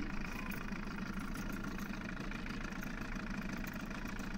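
Small outboard kicker motor idling steadily at low trolling speed.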